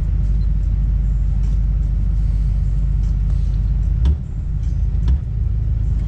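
Pontiac Firebird Trans Am's engine idling with a steady low rumble, shortly after a cold start. Two brief knocks come about four and five seconds in.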